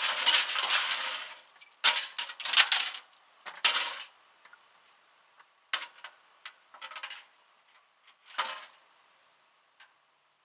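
Metal jangling and clinking in irregular bursts, loudest over the first four seconds, then a few lighter clinks.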